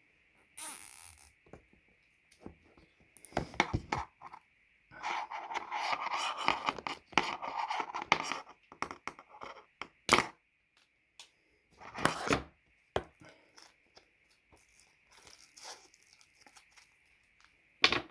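Cable tidies being worked onto an audio cable by hand: bursts of scraping, rustling and ripping, the longest lasting about three seconds, with a couple of sharp clicks. A faint steady high tone sits underneath.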